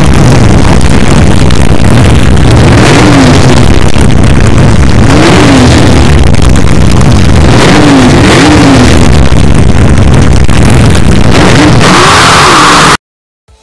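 Loud car engine revving, its pitch swinging up and down every few seconds. It cuts off suddenly near the end.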